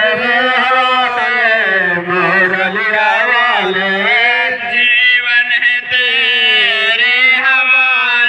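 A man singing a Hindi devotional bhajan in long, wavering, drawn-out notes.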